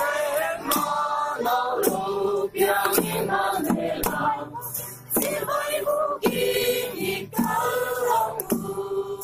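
A group of men and women singing a Christmas carol together, with sharp beats keeping time about once a second.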